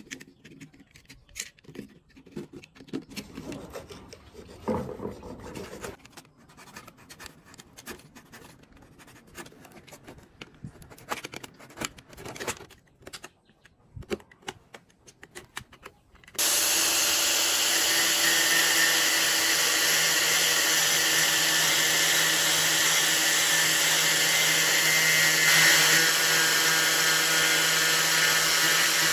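A utility knife blade scraping and shaving hardened filler off a plastic joint, in quiet, irregular scrapes and clicks. A little past halfway an electric angle grinder with a sanding disc starts suddenly and runs steadily, sanding down the plastic repair, much louder than the scraping.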